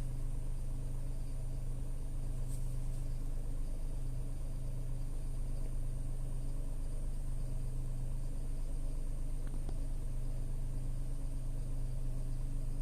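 Tata Altroz's 1.2-litre three-cylinder petrol engine at a steady fast idle just after a cold start, heard from inside the closed cabin as an even low hum. A faint steady high whine runs over it, which the owner puts down to the fuel pump.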